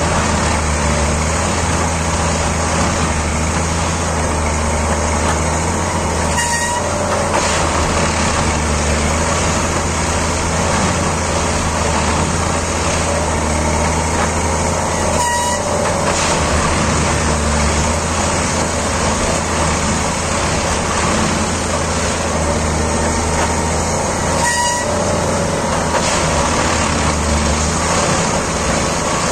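Plasser & Theurer Unimat track tamping machine at work: steady engine and machinery noise, with a brief knock and a short hoot-like tone about every nine seconds, three times.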